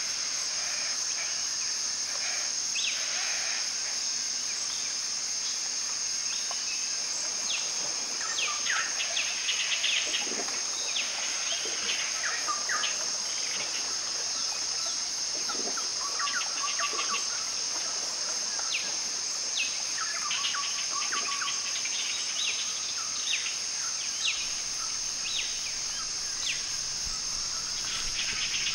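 Rainforest ambience: a steady, high-pitched insect drone with many short bird calls scattered through it, busiest in the middle stretch.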